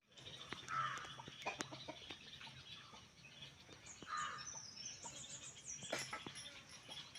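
Chickens clucking: two short clucks, about a second in and about four seconds in, with scattered clicks and faint high chirps around five seconds in.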